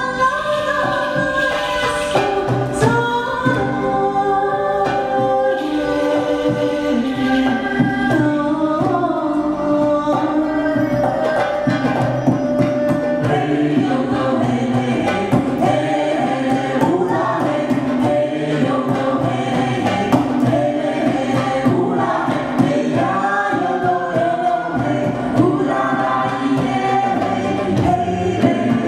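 Live acoustic music: a woman singing a sustained, gliding melody over a small ensemble of bowed strings and a frame drum.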